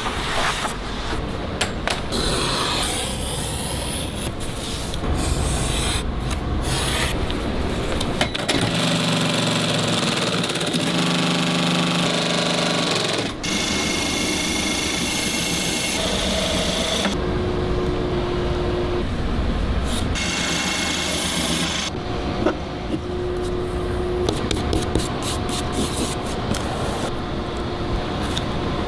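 A run of shoe-repair workshop sounds that changes every few seconds: a machine running, with scraping, rubbing and filing against the shoe.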